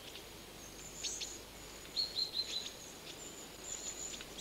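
Small songbirds singing: thin, high chirps and trills, with a quick run of four short notes about two seconds in, over a steady faint hiss.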